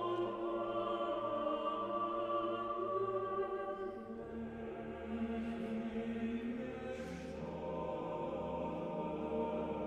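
Slow choral music: voices holding long chords, which change about four seconds in and again about three seconds later.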